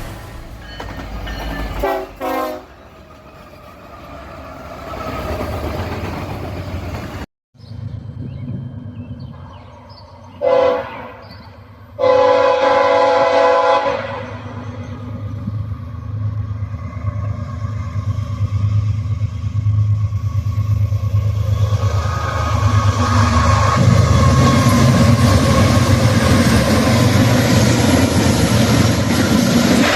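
Diesel locomotive horn sounding a short blast and then a longer one, followed by a train rolling past, its engine rumble and wheel noise growing louder.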